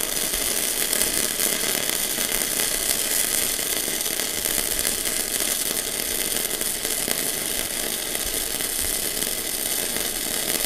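MIG welding arc from a Sasuke MIG welder, crackling steadily without a break as one long continuous bead is run along steel.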